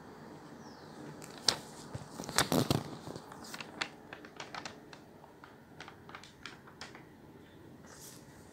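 Small plastic-capped seasoning jar being handled while seasoning is sprinkled over bread slices: a sharp click about a second and a half in, a louder cluster of clattering shortly after, then scattered light clicks and taps.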